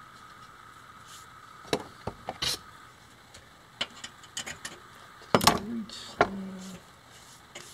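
Scattered metallic clicks and clinks of pliers gripping the thin sheet-metal tube and its tabs, with a louder clatter about five and a half seconds in.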